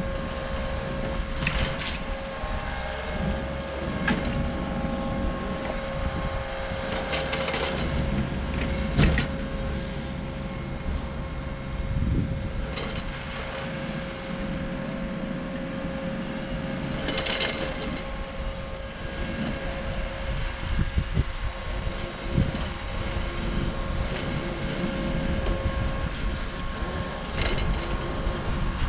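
ASV RT40 compact track loader running while it pulls a Harley rake through loose soil: a steady engine drone with a constant whine over it and a few brief knocks.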